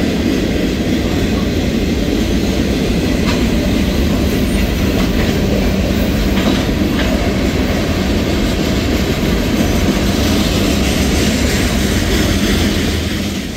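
Freight cars of a manifest train rolling past at steady speed: a continuous loud rumble of steel wheels on the rails, with a few faint clicks, fading out at the very end.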